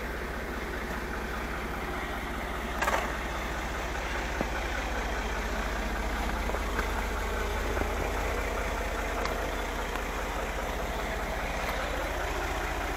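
Tractor engine idling steadily, with a brief louder noise about three seconds in.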